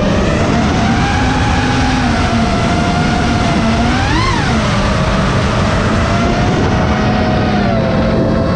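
An FPV quadcopter's brushless motors and 5.5-inch propellers whining. The pitch rises and falls with the throttle, with a sharp brief surge about four seconds in, over a steady rush of noise.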